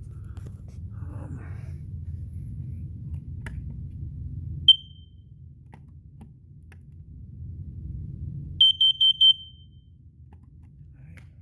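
Home smoke alarm being tested: one short high-pitched chirp, then a few seconds later four quick loud high-pitched beeps in a row.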